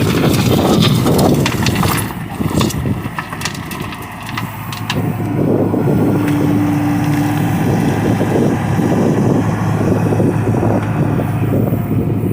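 John Deere excavator's diesel engine running hard under load, with a steady low hum. There is knocking and clatter in the first few seconds and a brief higher-pitched tone near the middle.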